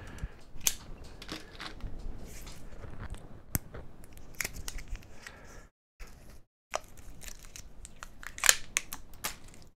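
A plastic shrink-wrap seal is being cut and peeled off the neck of a glass hot sauce bottle, giving irregular crinkling, crackling and sharp little clicks. The sound cuts out completely for about a second just past the middle.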